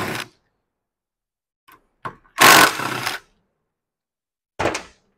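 A handheld power tool run in two short bursts of under a second each, undoing the bolts of a Rotax 447's recoil starter cup, with a couple of brief clicks between.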